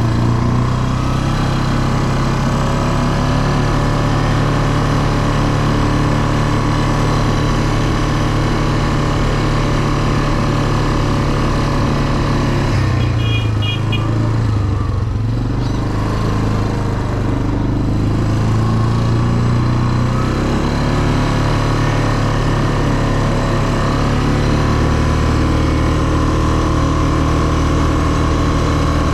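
ATV engine running under way, a steady motor note whose pitch drops about halfway through and then picks up again.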